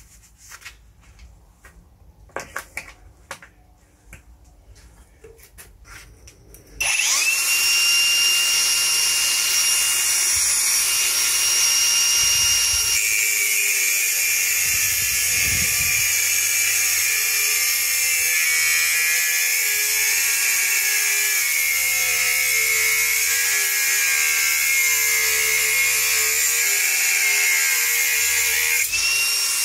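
INGCO cordless brushless 115 mm angle grinder, preceded by a few light handling clicks, starts about seven seconds in and spins up to a steady high whine. From about thirteen seconds its disc bites into the work under heavy pressure, the motor note wavering under the load. Near the end it comes free and whines unloaded again.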